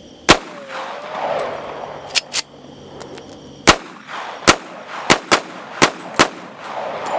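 .45 ACP semi-automatic pistol firing seven shots: a single shot, then after a pause of about three seconds six more in quick, uneven succession, the reports trailing off in echo. Two fainter sharp cracks come about two seconds in.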